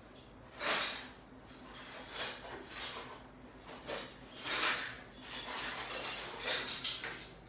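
Scissors snipping through a rolled bundle of fresh betel (paan) leaves, cutting them into small pieces: about eight short snips at uneven intervals.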